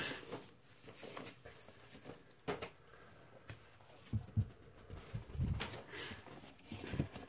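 Vinyl LP record jackets being handled and swapped, one still in shrink wrap: scattered light rustles and taps, with a few soft thumps a little past the middle as a sleeve is set down.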